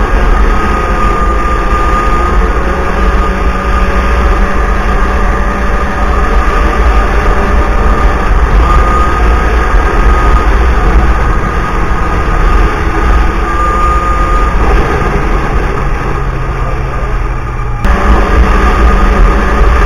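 Snowmobile engine and track running at speed on a trail, a steady whine over a heavy low rumble, its pitch wavering slightly. A few seconds before the end the engine note drops and quietens, then comes back abruptly at full level.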